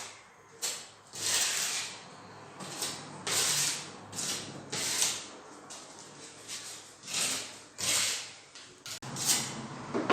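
Metal spatula scraping and smoothing gypsum plaster on a wall: a series of short rasping strokes, about one a second, irregularly spaced.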